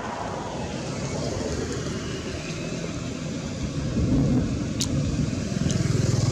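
Low rumble of a motor vehicle engine, swelling about four seconds in and again near the end, with one sharp click shortly before five seconds.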